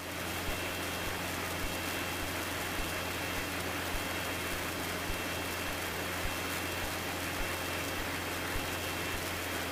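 Cessna 150's four-cylinder Continental O-200 engine and two-blade propeller running steadily in flight, heard inside the cabin as an even rushing noise with a low hum underneath.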